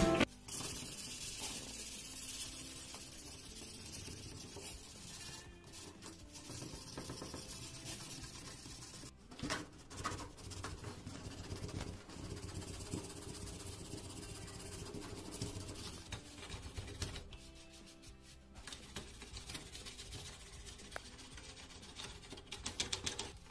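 Irregular rubbing and scraping from hand cleaning and abrasive work on the blow torch's brass parts, with a few short louder strokes.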